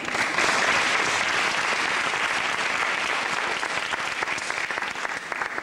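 Audience applauding, starting suddenly at the end of a dance number and easing off slightly near the end.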